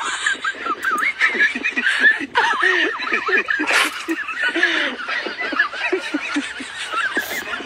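Snickering, giggling laughter with several high voices overlapping and wavering quickly in pitch.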